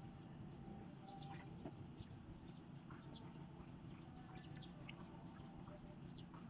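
Faint outdoor ambience: small birds chirping in short, scattered calls over a low, steady rumble.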